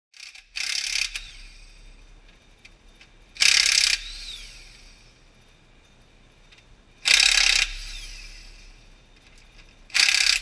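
Impact wrench hammering in four short bursts on the bearing-cap bolts of a 1963 GMC 305 V6 bottom end, loosening them for teardown; after each burst its motor whine falls away as it spins down.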